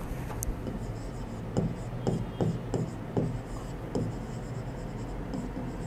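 Someone writing by hand: a run of short scratching strokes, most of them between about a second and a half and four seconds in.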